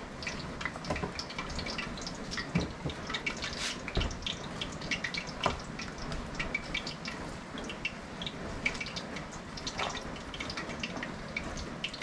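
Hand squishing and kneading wet gram-flour pakora batter with sliced onions in an aluminium tray: a steady run of irregular wet squelches and clicks, with a few louder thumps.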